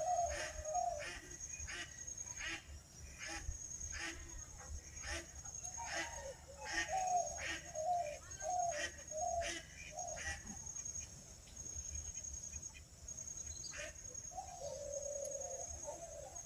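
Waterfowl honking in a series of short repeated calls, thickest in the first ten seconds and again near the end, over a faint steady high whine.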